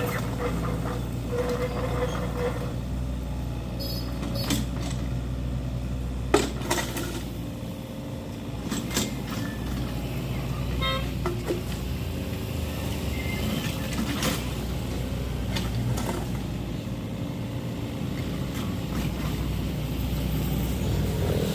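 Komatsu MR30 mini excavator's diesel engine running steadily while it works, with scattered sharp knocks over the drone; the loudest knock comes about six seconds in.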